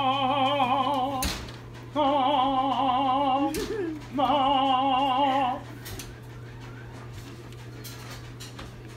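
A voice singing three long held notes in an operatic style with a wide, even vibrato, the last one breaking off about five and a half seconds in.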